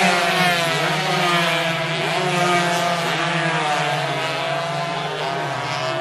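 Several racing motorcycle engines running at high revs, their pitch rising and falling as the bikes accelerate, shift and pass.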